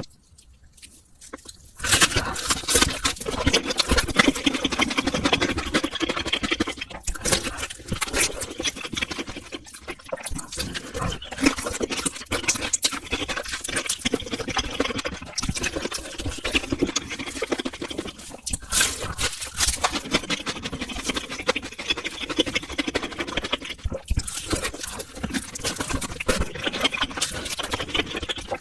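Close-miked eating of spicy instant noodles: wet slurping and chewing with many small mouth clicks and smacks, starting about two seconds in after a brief quiet.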